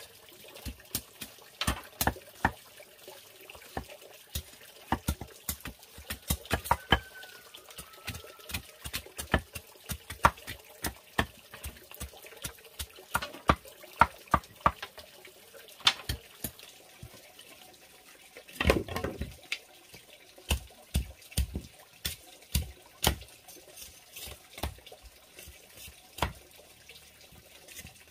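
Machete and hatchet blows on bamboo poles, chopping and splitting them into stakes: sharp, irregular knocks, several a second in places. One longer rasping crackle comes about two-thirds of the way through.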